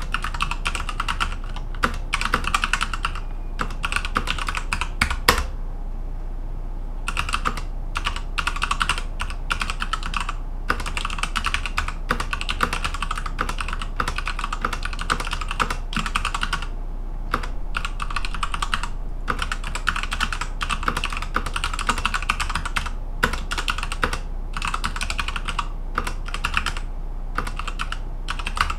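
Typing on a Machenike K600 mechanical keyboard with Alpha Brown switches and PBT keycaps: rapid key clicks in runs, broken by short pauses, the longest about six seconds in.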